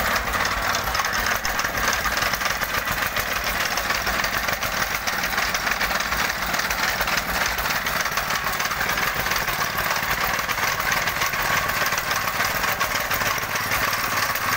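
Petrol tamping rammer (jumping-jack compactor) running and pounding gravel fill in rapid, steady strokes. The machine is not working normally and is not compacting as well as it should.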